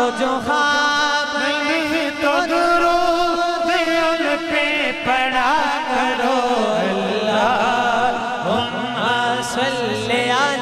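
A male naat reciter singing a Punjabi devotional naat, drawing out long ornamented notes without clear words, through a PA sound system. About two-thirds of the way in, a lower pulsing drone joins beneath the voice.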